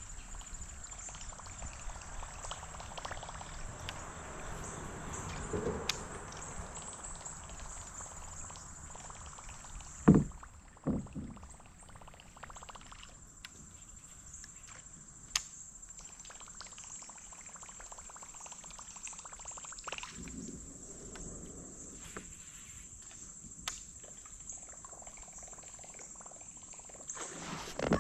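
Outdoor lakeside ambience with a steady high insect drone, crickets or similar, running throughout. Two sharp knocks come about ten and eleven seconds in, the loudest sounds here, with a few fainter clicks later.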